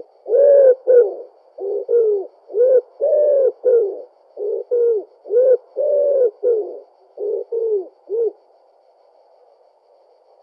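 Common wood pigeon singing: its cooing song of about fifteen low coos in repeated phrases, stopping about eight seconds in.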